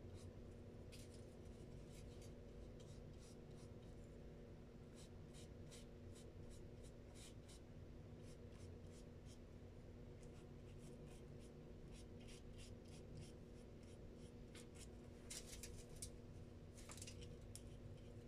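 Faint, light swishes of a wet paintbrush stroking across paper, in irregular runs of short strokes, over a steady low hum.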